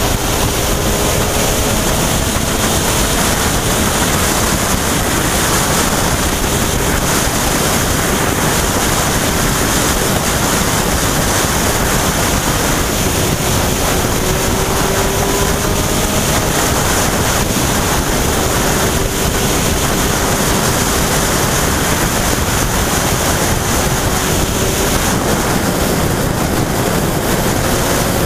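Heavy wind rushing over the microphone of a motorcycle riding at speed. The Yamaha FZ1's inline-four engine note is faintly heard underneath, rising and falling a little with the throttle.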